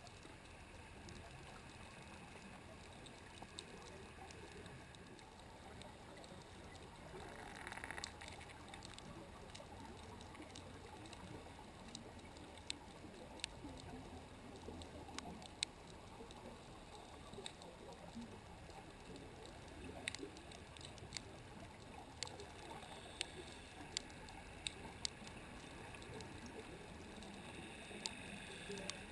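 Faint underwater ambience picked up by a camera sitting on the seabed: a steady hiss with a brief swell of noise about eight seconds in, then scattered sharp clicks through the second half.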